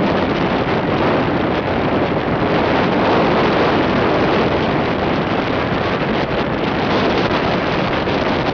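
Strong wind blowing over the camera microphone: a loud, steady rushing noise with gusty fluctuations.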